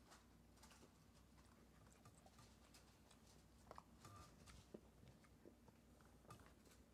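Near silence: faint room tone with a few soft clicks and rustles.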